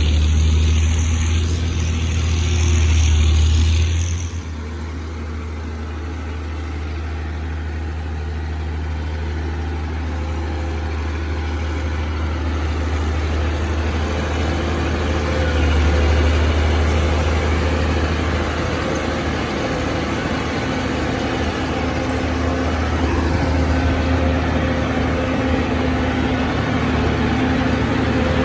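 Heavy diesel engines of earthmoving machinery and trucks running steadily, louder and with a high-pitched whine over the first four seconds, then settling to a steady low drone.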